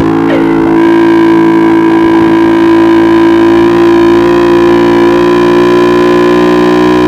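Distorted electric guitar holding one long sustained note through effects, ringing steadily at a single pitch.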